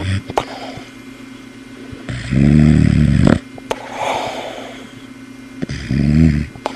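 Boxer dog snoring loudly: two long buzzing snores about three and a half seconds apart, each about a second long, with a softer breath between them.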